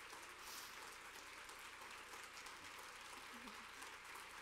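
Audience applauding steadily, heard faintly.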